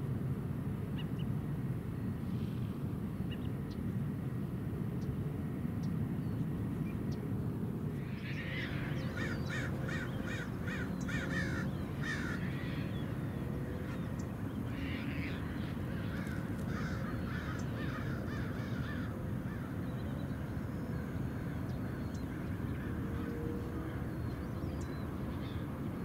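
A flock of birds calling, many harsh calls overlapping, from about eight seconds in for some ten seconds, over a steady low rumble.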